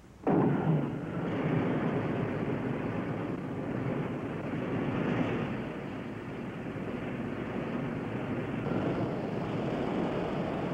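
Rain-making spray heads along a sled test track spraying water: a steady rushing noise that starts suddenly just after the start and holds, swelling a little now and then.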